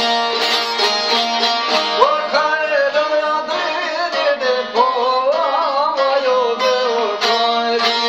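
Several long-necked folk lutes plucked and strummed together in a quick, steady rhythm, joined about two seconds in by a man's singing voice carrying a wavering, ornamented melody.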